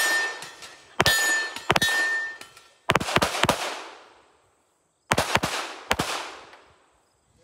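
About eight 9mm pistol shots from an Alien Retro open-class competition pistol, fired in quick groups of two and three with short pauses between groups, each echoing. A brief metallic ringing follows the first couple of shots.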